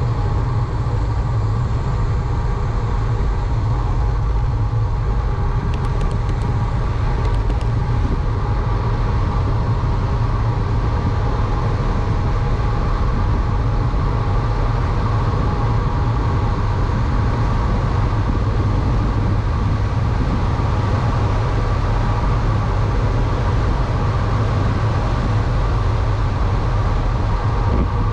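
Wind rushing over the microphone and tyres rolling on asphalt while moving downhill at speed: a steady, heavy rumble.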